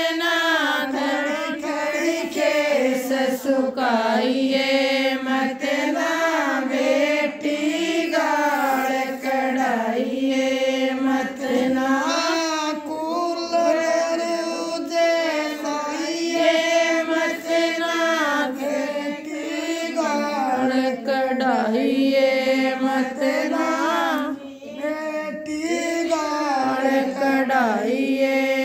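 A woman singing a Rajasthani jakhdi folk song alone, with no instruments, in long, bending, held melodic lines.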